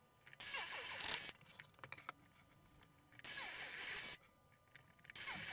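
A drill with a 3 mm bit widening screw holes in a wooden chair frame, in bursts of about a second each, twice, with a third starting near the end and a few light clicks in between.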